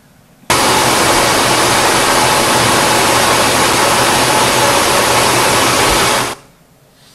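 Loud, steady hiss-like noise with a faint low hum, from a demo video's soundtrack played from a laptop through the hall's speakers. It starts abruptly about half a second in and cuts off near the end.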